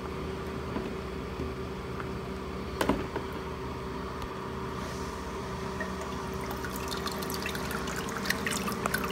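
Ecotech Vectra M1 return pump starting up and pushing water back through the return nozzle: water splashing and trickling into the reef tank, building over the last few seconds as flow comes up. Under it runs a steady equipment hum, with a sharp click about three seconds in.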